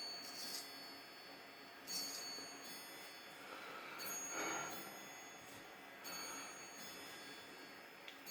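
Vintage straight razor scraping through thick beard stubble in short, separate strokes, with faint sustained chime-like tones behind.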